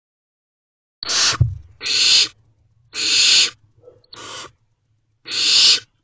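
Barn owlets hissing: five rasping hisses of about half a second each, the begging 'snore' of nestlings calling for food. A dull thump comes about a second and a half in.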